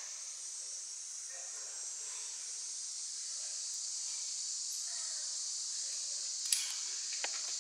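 Steady high-pitched hiss of an insect chorus, with one sharp click about six and a half seconds in.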